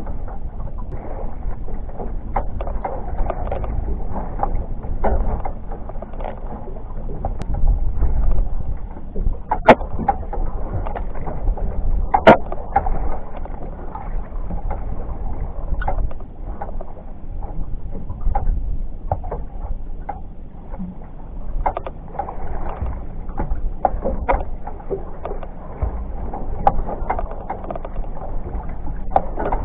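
Water lapping and slapping against the hull of a small fishing boat drifting on choppy water, with scattered sharp knocks, the loudest about ten and twelve seconds in.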